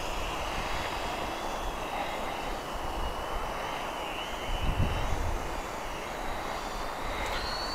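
XK X300 quadcopter's motors and propellers whining in flight, the high pitch wavering and shifting as it flies. A brief low rumble comes a little past halfway.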